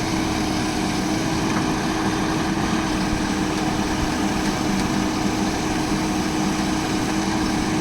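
Bull backhoe loader's diesel engine running at a steady, unchanging speed: an even engine hum.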